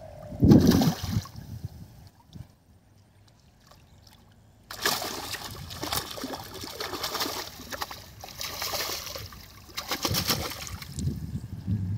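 Fish thrashing and splashing in a cast net as it is hauled up through shallow pond water, the splashing starting suddenly about five seconds in and going on in irregular bursts. A single heavy splash comes about half a second in.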